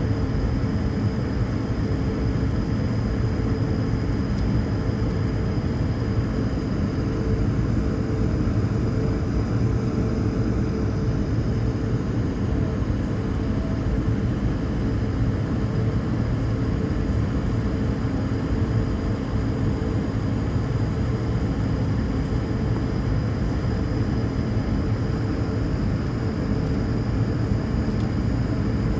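Airliner's jet engines idling, heard inside the passenger cabin as a steady hum with a faint high whine, while the plane holds short of the runway before take-off.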